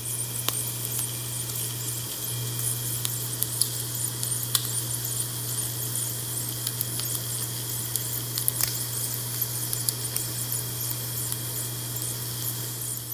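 Food frying in hot oil in a pan: a steady sizzle with scattered small crackles and pops, over a low steady hum.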